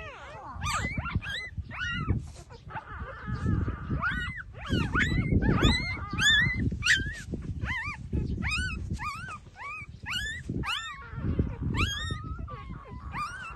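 Newborn puppies squeaking and whimpering in many short, high, rising-and-falling cries, several a second, over low shuffling and suckling noise as they nurse.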